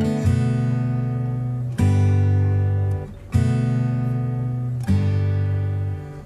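Background music of strummed acoustic guitar chords. A new chord is struck about every second and a half, and each one rings and fades before the next.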